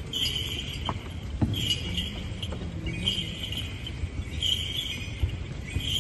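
Small bells on a swung Orthodox censer jingling in short bursts, one burst on each swing, about every second and a half.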